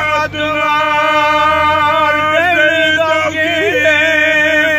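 An elderly man singing a Turkish folk song without accompaniment, drawing out one long held note with a couple of short ornamental turns in the middle.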